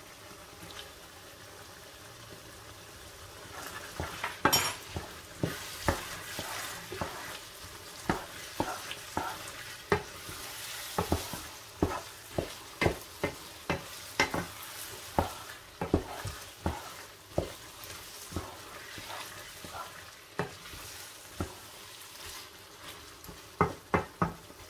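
Ground meat and diced potatoes sizzling in a frying pan. From about four seconds in, a wooden spoon stirs them, scraping and knocking against the pan in quick, irregular strokes.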